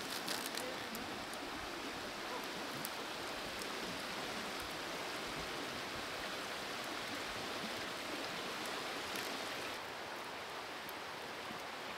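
Steady rush of flowing river water, with a few faint clicks in the first second.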